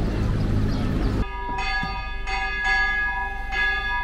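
A steady noisy background breaks off about a second in, and church bells ring: a run of strikes at uneven intervals, each note ringing on into the next.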